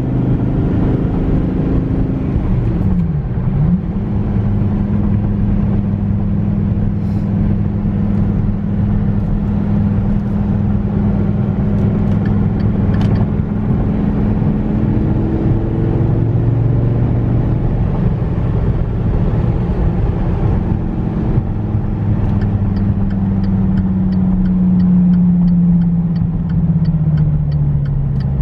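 Dodge Viper GTS's 8.4-litre V10 running as the car drives, at steady revs apart from a quick dip and recovery in pitch about three seconds in. Near the end the engine note slowly falls as the revs drop, with a light rapid ticking over it.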